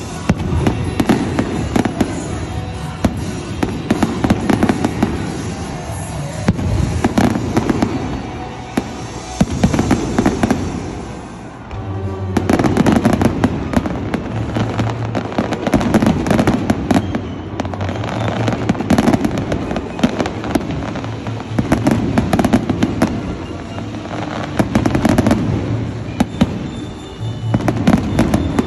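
Fireworks finale: aerial shells bursting in a dense, near-continuous barrage of booms and crackling, briefly easing off about eleven seconds in before building again.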